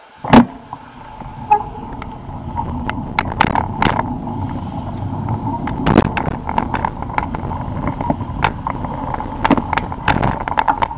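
Tornado full-suspension bicycle ridden over paving stones: the tyres rumble steadily while the frame, chain and shocks rattle and knock sharply at every bump.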